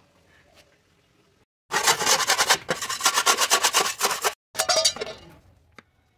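A hand-held pad rubbed rapidly back and forth across a glass sheet, in quick scrubbing strokes. It starts about two seconds in, stops for a moment, then resumes and fades out.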